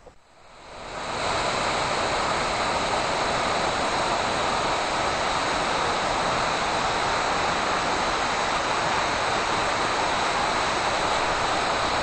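Waterfall and rapids on a mountain creek: steady rushing water that fades in over the first second and then holds even.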